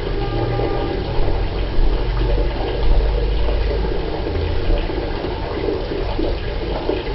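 Water running steadily from an instant water heater's outlet into a bucket, filling it, with a low rumble underneath.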